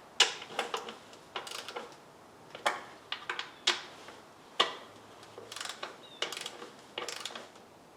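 Hand ratchet clicking in short quick runs with single ticks between, as the intake plenum bolts are snugged down.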